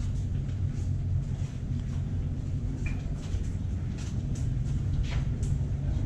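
Steady low rumble of hydroelectric power-plant machinery carried through a concrete tunnel, with a few faint footsteps as people walk through.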